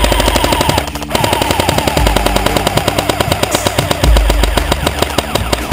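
Airsoft light machine gun firing long, rapid bursts, with a short pause about a second in. Heavier low thuds come around two and four seconds in.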